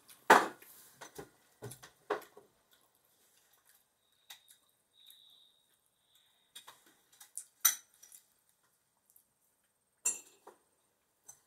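Dishes and cutlery clinking at a meal table: a few separate clinks and knocks spread out, with quiet gaps between them.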